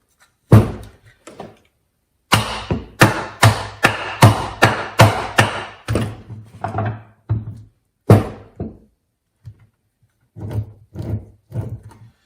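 Hammer tapping gear-reduction gearbox parts to seat them in the cast case: one hard knock, then a run of about ten knocks at two to three a second, another hard knock, and a few lighter taps near the end.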